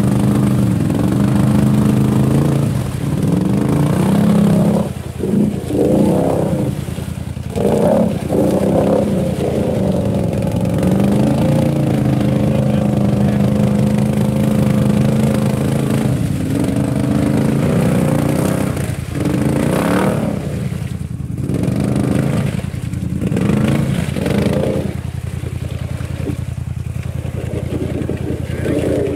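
ATV engine running, held at a steady speed for stretches and revved up and down several times, its pitch rising and falling.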